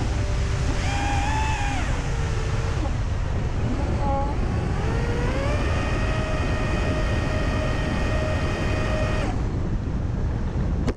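FPV drone's electric motors whining with throttle changes over heavy wind rumble on the onboard camera: the pitch wavers early, rises about five seconds in and holds steady, then the whine cuts out about two seconds before the wind noise drops away.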